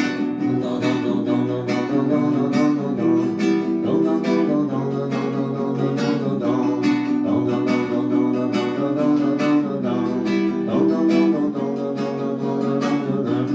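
Instrumental passage of an upbeat song: strummed guitar chords over a steady beat.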